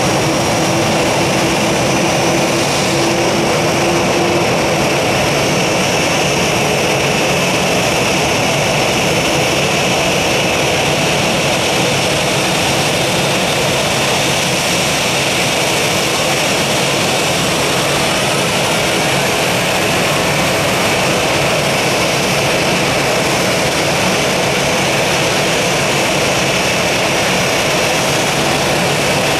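Boeing 737-800's CFM56-7B turbofan jet engine running steadily, a loud even rush with a high whine, and a fainter tone rising in pitch about two-thirds of the way through.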